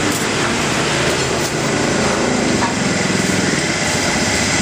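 Gas wok burner running with a steady, even roar.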